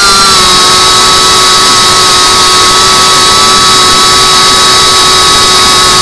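FPV quadcopter's brushless motors and propellers whining at a steady pitch, heard close through the drone's onboard camera: the drone is cruising at constant throttle.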